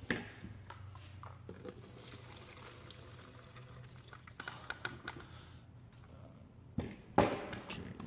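Small clicks and knocks of hand work on a chainsaw, with two louder knocks about seven seconds in.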